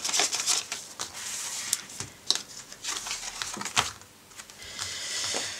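Paper and plastic binder sleeves rustling, with scattered clicks and taps as a sheet is taken out of a ring binder and pressed flat on a wooden table. The rustle is strongest at the start and again near the end.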